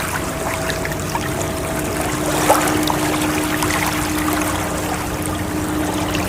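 Steady rushing, splashing water with scattered small droplet crackles, and a faint steady tone held underneath.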